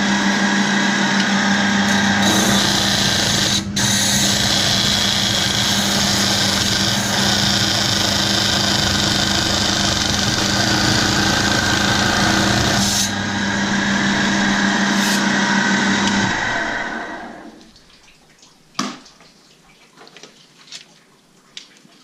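Water-cooled lapidary saw cutting opal rock: a steady motor hum under a harsh hiss of the blade in stone from about two seconds in to about thirteen. The motor then winds down and stops a few seconds later, leaving a few small clicks of stones being handled.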